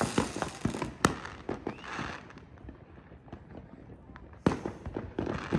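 A 238-shot firework cake at the end of its run: scattered sharp cracks and crackling pops thinning out and growing fainter, with one loud crack about a second in and a short noisy burst near the end.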